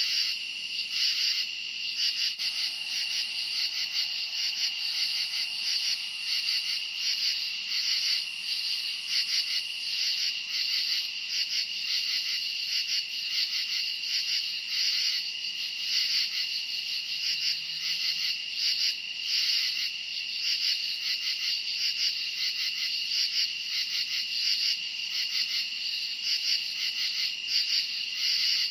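Night chorus of crickets chirping: a constant high trill with fast, even pulsing layered over it, going on without pause.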